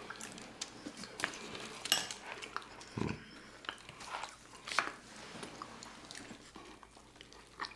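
Quiet, close-miked chewing and wet mouth smacking of people eating soft food (cubed steak in gravy, mashed potatoes, dinner rolls), with scattered short clicks and one louder smack about three seconds in.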